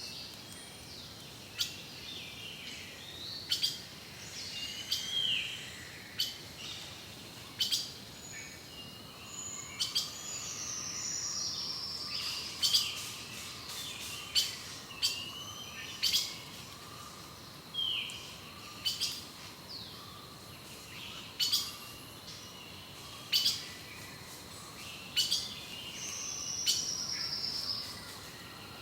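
Several forest songbirds calling: sharp high chips repeated every second or two, mixed with a few short descending trills and down-slurred whistles.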